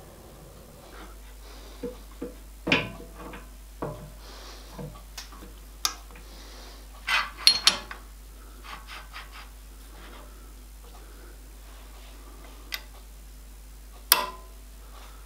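Steel tooling being handled on a drill press table: a small machine vise, locking-pliers clamps and steel blocks set in place and clamped, giving scattered metallic clicks, clinks and knocks, a few of them sharp.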